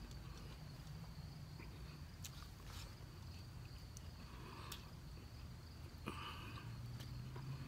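Faint sounds of eating by hand from a banana leaf: a few soft clicks and short rustles, about four in all, over a quiet outdoor background with a steady low rumble and a faint steady high hum.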